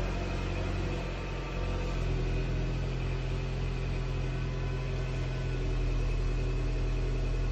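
Mercedes-Benz E200 Coupe's turbocharged four-cylinder engine idling steadily, heard from inside the cabin.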